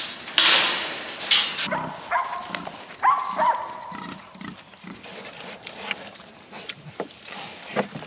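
Metal pen gate and its chain rattling open at the start, then pigs squealing and grunting as they follow the food out.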